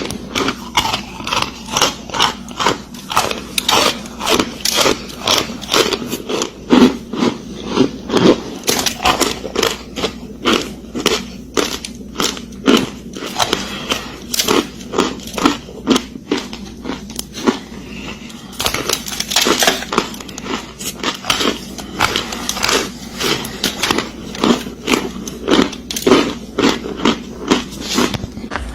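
Close-miked biting and chewing of something hard and crunchy: a steady run of sharp crunches, about two a second.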